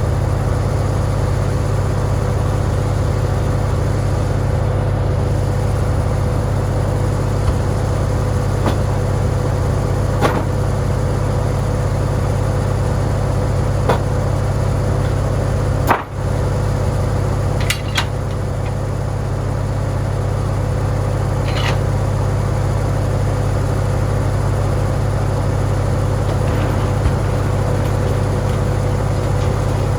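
Farmall tractor engine running steadily while it powers a board edger, a constant low hum with a steady higher tone over it. A few sharp knocks come through, the loudest about halfway.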